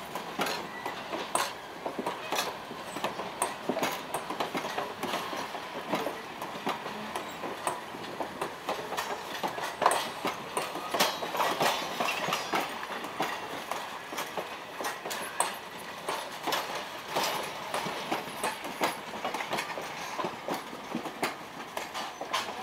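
Vintage steel passenger coaches rolling past, their wheels clacking over the rail joints in a steady, uneven run of clicks.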